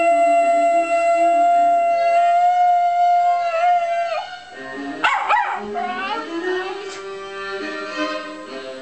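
Italian greyhound howling one long held note along with a viola; the howl slides down and breaks off about four seconds in. About five seconds in comes a shorter, wavering yelp-howl while the viola keeps playing below.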